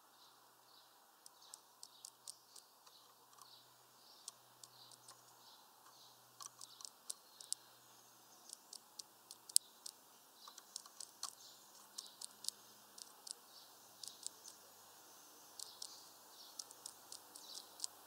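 Great tit pecking at a mesh seed feeder: irregular sharp taps in quick runs of several a second, with faint bird calls behind.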